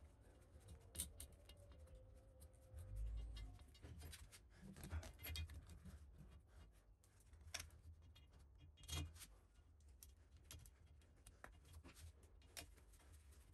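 Faint scattered clicks and light knocks of hand assembly work: an Allen key turning a screw in a steel plate, then a plastic cable drag chain being handled and fitted.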